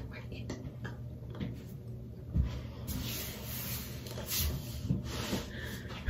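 Soft rustling and a few light knocks from movement close to the microphone, over a low steady hum.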